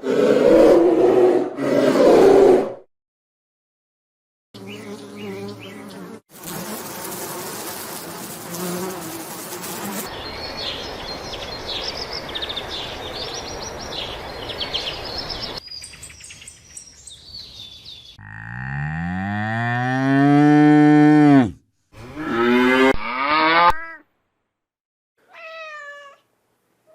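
A run of separate animal calls: cattle mooing, including one long call that falls in pitch, a noisy stretch with high chirps in the middle, and short meows of a cat near the end.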